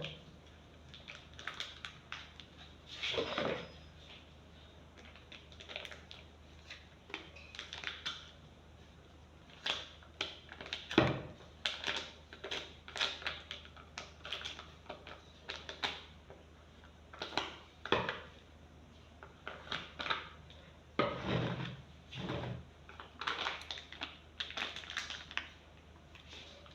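Kitchen utensils and a mixing bowl handled while making pie dough from flour and butter: irregular taps, clinks and short scrapes, the sharpest about 11 seconds in.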